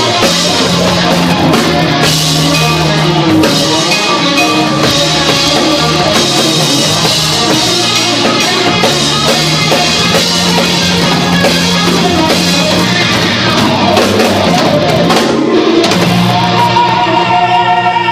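Live rock band playing an instrumental passage, with drum kit, electric guitar and bass, recorded loud from the audience. Near the end the drums drop away and a sustained guitar note rings out.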